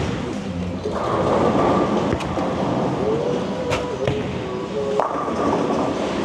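Bowling ball rolling down a wooden lane, a steady rumble from about a second in, ending in a short knock about five seconds in as it reaches the pins.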